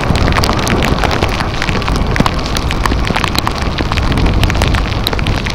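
Wind rushing over the microphone of a camera carried on a moving bike, with many short, sharp ticks scattered through it.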